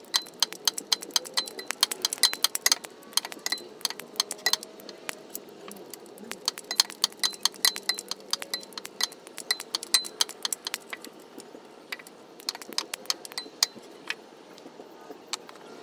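Hand ratchet wrench clicking in quick runs of strokes with short pauses, loosening a starter mounting bolt by hand.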